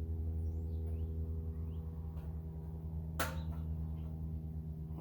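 Steady low mechanical hum with one sharp metallic clank about three seconds in, which rings briefly; it fits the steel handle being fitted onto a Greenlee ratcheting pipe bender.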